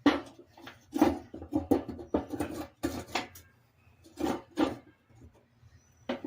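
Metal parts and tools clanking and clattering as they are handled, about a dozen sharp, ringing knocks in quick irregular succession.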